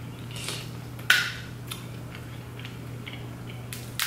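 Snow crab leg shells being cracked and snapped apart by hand: one loud sharp crack about a second in, a few lighter clicks, and another sharp crack near the end, over a steady low hum.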